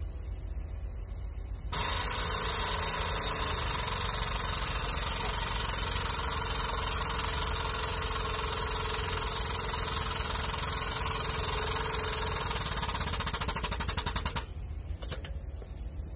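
A powered hydraulic pump runs, driving a hydraulic ram to press the leaf-spring eye bushing on a heavy truck. It starts about two seconds in with a steady, noisy run, pulses rapidly near the end, then cuts off.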